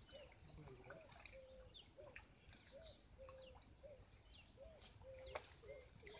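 Faint wild birdsong: a low call repeating about once a second, with thin, quick descending chirps of other birds above it, and a single sharp click about five seconds in.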